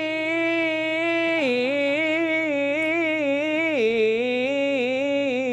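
A man singing unaccompanied, drawing out one long vowel with wavering Arabic-style ornaments, the pitch stepping down twice.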